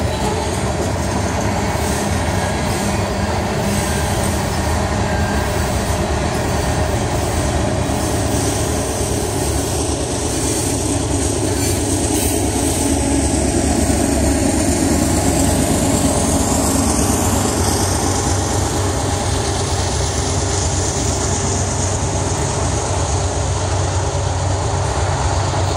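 Covered hopper cars of a Union Pacific freight train rolling past: a steady, loud rumble and clatter of steel wheels on the rails. A faint high wheel squeal comes in partway through.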